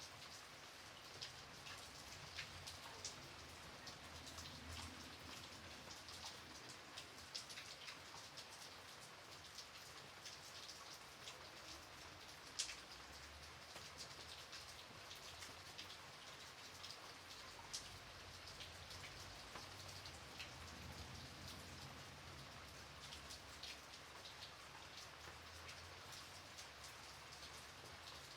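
Faint, gentle rain falling steadily, with many individual drops ticking on a surface; one drop lands louder about halfway through.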